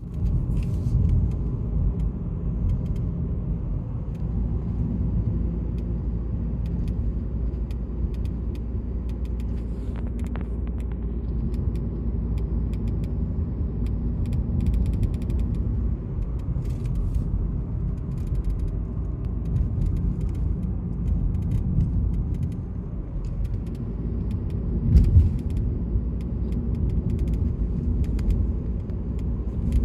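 Inside a moving Ford Focus: steady road and engine rumble with scattered short creaks and clicks from the trim, a noise the owner links to the door and its rubber seal.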